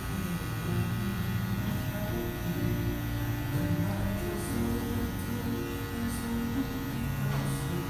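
Electric hair clipper running with a steady buzz as it cuts up the side of the head, its taper lever pushed up for a closer cut while blending a fade. Background music plays under it.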